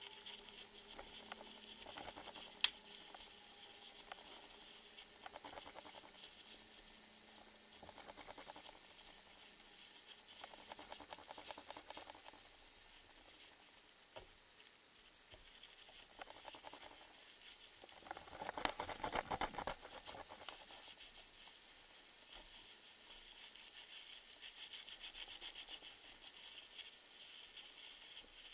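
Faint rustling and crackling handling noises in short stretches, with one sharp click about two and a half seconds in and a louder crackling stretch about two-thirds of the way through.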